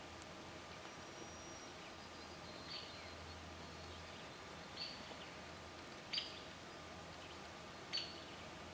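Four short, high bird chirps spaced through a faint, steady background hiss, the loudest a little after six seconds in.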